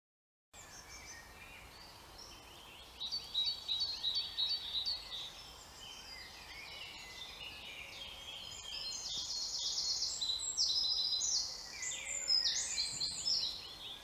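Woodland birdsong: several songbirds singing over one another in quick high chirps and fast trills. It starts about half a second in and swells twice, around three seconds and again from about nine to thirteen seconds.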